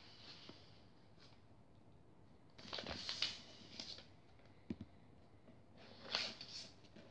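Faint rustling and creasing of a sheet of patterned origami paper being folded in half and pressed flat, in a few short bursts with one light tap partway through.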